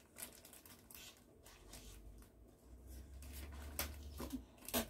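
Faint scattered rustles and light taps of paper leaflets and cardboard packaging being handled and pushed back into a box.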